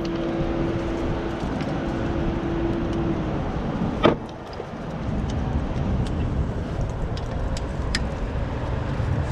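Wind buffeting the microphone in a steady rumble, with a few small metallic clicks and one sharper knock about four seconds in. A steady hum sounds under it for the first three seconds.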